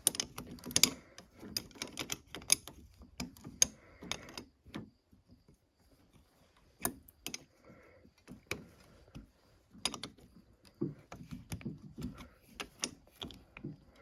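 Hand tools working a fastener: short runs of quick ratchet-like clicks and sharp metal taps as a 12mm bolt is tightened, with a brief pause about halfway through.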